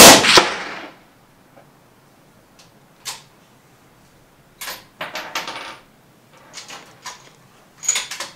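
A single CZ 457 .22 LR bolt-action rifle shot, sudden and loud, ringing out over about a second. It is followed by a series of short metallic clicks and clinks of the bolt being worked.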